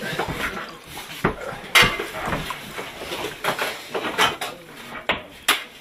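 Glassware clinking: a glass bottle and faceted drinking glasses knocking together on a table as a drink is poured into them, several sharp clinks, the loudest about two seconds in.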